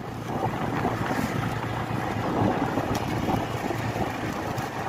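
Motor scooter riding along with its small engine running steadily, mixed with wind buffeting the microphone.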